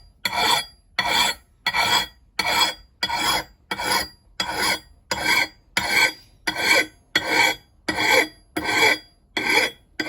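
A steel hand file rasping along an axe's bevel in even, light push strokes, a little under two strokes a second, each a short rasp with a pause while the file comes back.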